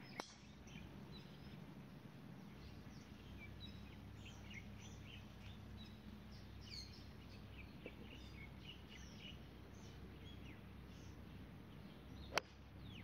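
Faint scattered bird chirps over quiet open-air ambience, with a small click at the very start. Near the end comes a single sharp crack, the loudest sound: a golf club striking the ball off the tee.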